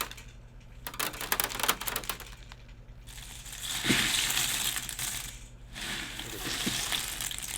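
Foley sound effects being made: a run of sharp crackling clicks and snaps, then a longer burst of crunching about three seconds in.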